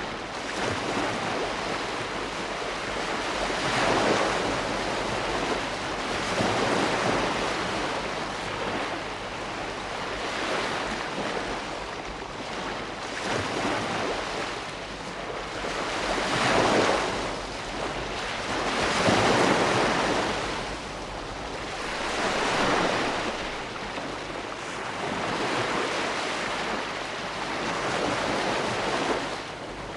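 Ocean waves breaking and washing ashore, a steady rush of surf that swells and eases every few seconds, with a louder break about 17 and 19 seconds in.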